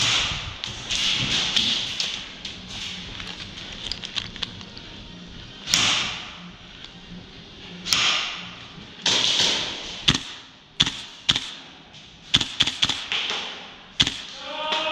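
Airsoft guns firing, heard as sharp, irregular snaps that come thick and fast in the last few seconds, among a few short hissing rushes.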